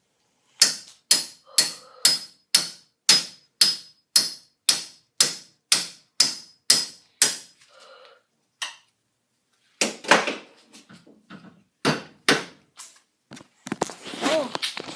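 Hammer blows striking a golf ball, about two a second with a short metallic ring on each, stopping around seven seconds in; after a pause come a few more irregular strikes and some clatter.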